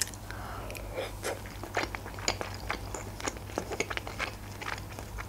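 A person chewing a mouthful of boiled pelmeni, with many short wet mouth clicks and smacks.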